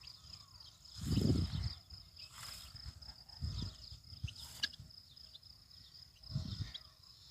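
Steady high-pitched insect drone, with short high chirps over it and a few low rumbles, the loudest about a second in.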